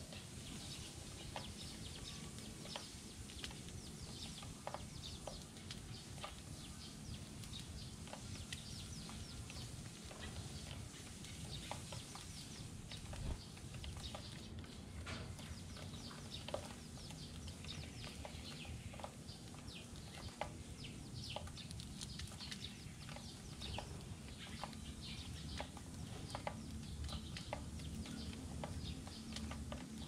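A flock of Eurasian tree sparrows feeding on seed, with many short chirps and quick taps of beaks on plastic scattered throughout, over a low background rumble.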